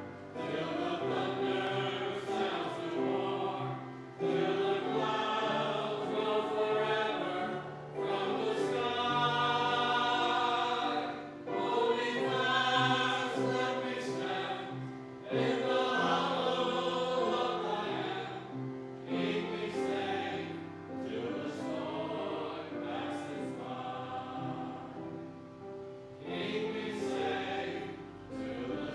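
Church choir singing a song in phrases of a few seconds each, over sustained low accompanying notes.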